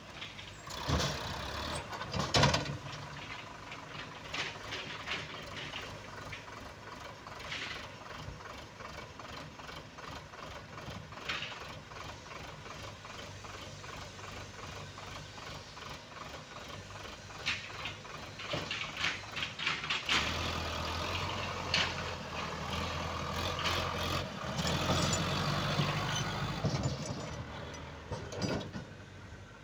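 Sonalika tractor's diesel engine running while its hydraulic tipping trailer is emptied of soil and lowered, with sharp knocks, the loudest in the first few seconds. The engine gets louder about two-thirds of the way through as the tractor pulls away.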